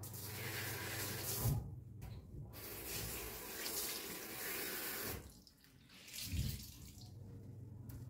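Water running from a tap, broken off briefly about two seconds in and again just after five seconds.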